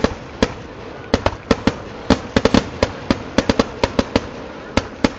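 Firecrackers of a Kerala temple vedikettu going off in a rapid, irregular string of sharp bangs, about four a second.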